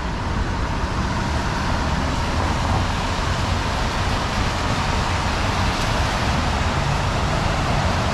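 Steady city street traffic noise: cars passing on wet pavement over a constant low rumble.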